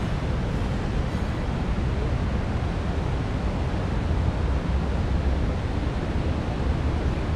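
Steady city street noise: a continuous low rumble with hiss over it, with no distinct events.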